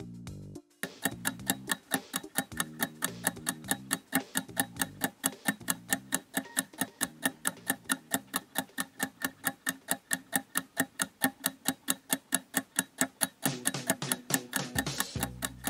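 Countdown-timer ticking sound effect: a rapid, even clock-like tick that starts about a second in.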